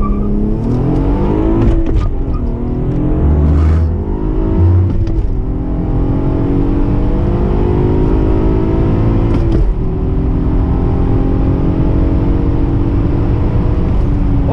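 Acura TL SH-AWD's 3.7-litre J37 V6 accelerating hard, heard inside the cabin, its note rising through each gear with a quick drop in pitch at each upshift, about 2, 5 and 10 seconds in. After the last shift it holds a steadier, gradually rising tone.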